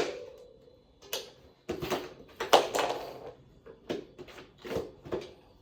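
Tire levers prying the last tight section of a tubeless mountain bike tire's bead onto the rim. It comes as a string of irregular knocks and clacks of the levers and bead against the rim, loudest in the middle.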